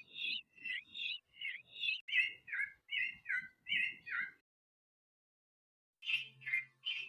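Bird chirping: a quick run of about a dozen short chirps, each dropping in pitch, then a pause of over a second and a fresh burst of chirps near the end.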